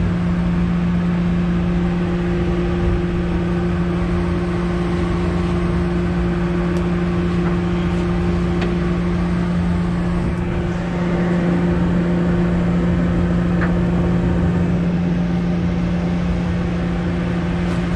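Party boat's engine running with a steady low hum, a few faint clicks over it.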